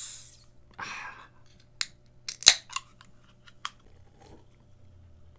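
Soda can just cracked open, its fizz hissing and fading in the first half-second, with a short burst of fizz about a second in. Then a few sharp clicks and gulps come from sipping and swallowing from the can, the loudest about halfway through.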